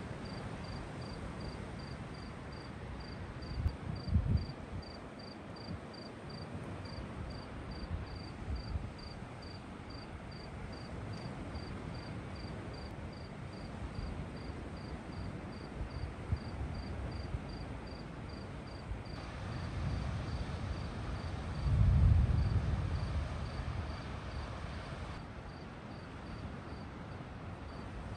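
A cricket chirping steadily, about two or three short high chirps a second, over a low rumbling background. Distant thunder rumbles briefly about four seconds in and more loudly for a couple of seconds about three-quarters of the way through.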